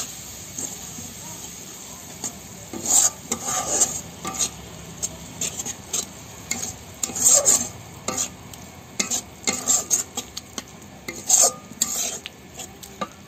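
Wooden spatula stirring and scraping a frying onion and spice masala around a kadai, in irregular strokes against the pan over a steady sizzle of hot oil.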